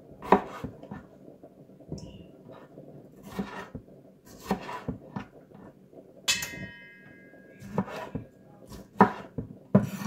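A wide-bladed kitchen knife chopping tomato on a wooden cutting board: irregular knocks of the blade on the board, about one a second. A short metallic ring sounds about six seconds in.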